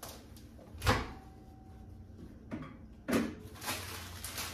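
Sharp clunks of a kitchen door being opened and shut: a loud knock about a second in and a heavier clunk about three seconds in, with a faint steady tone in between.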